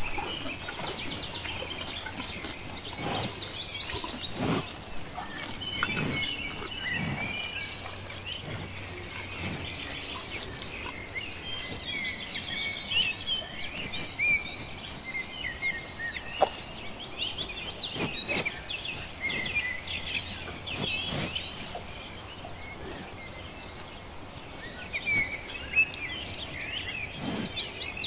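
A chorus of small birds chirping and singing, many short high calls overlapping without a break, with a few soft knocks now and then.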